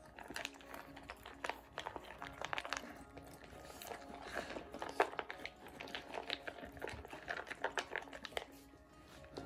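German Shepherd and Border Collie puppies eating dry kibble from a plastic double bowl: many short, irregular crunches and chewing sounds.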